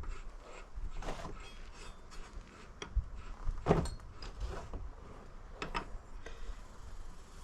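Intermittent knocks, clanks and scrapes of tools and metal parts being handled during mower deck work, with the loudest knock about halfway through.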